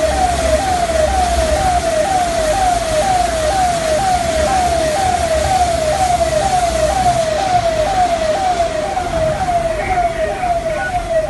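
A siren sounding in quick falling sweeps, about three a second, over a steady hiss and low rumble.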